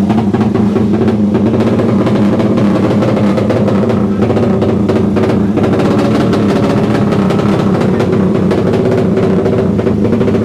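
Racing motorcycle engine running steadily and loudly.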